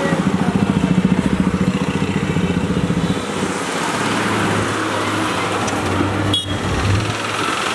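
Dense street traffic: motorcycles and auto-rickshaws running close by. A rapid engine putter dominates for about the first three seconds, then a steadier low engine hum follows as a city bus passes. A single sharp click comes about six seconds in.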